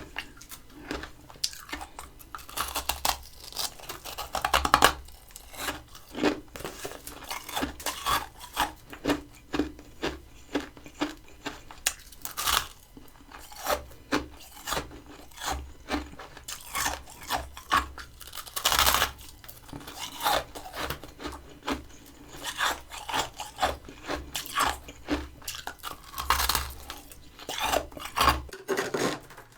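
Close-up chewing of crunchy freezer frost, a steady run of crunches about two a second, with a few louder, longer crunches along the way.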